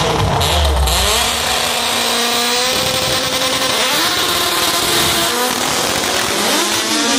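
Drag-racing cars running down the strip at full throttle, their high-revving engines climbing in pitch and dropping back at each upshift, several times over.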